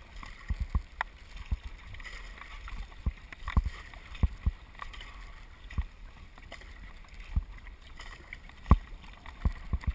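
Kayak paddling on the sea: paddle strokes in the water, with irregular short low knocks and thumps, the loudest about three-quarters of the way through.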